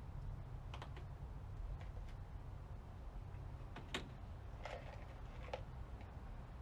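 A handful of light clicks and knocks, the sharpest about four seconds in, over a steady low hum: plastic trim pieces and push clips being handled and snapped back into place on the vehicle.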